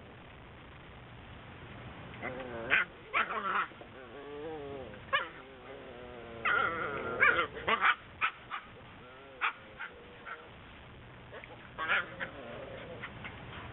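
Whippet puppies whining and yipping: wavering whines in the first half, broken by many short, sharp yips that come in bunches, then a few more yips near the end.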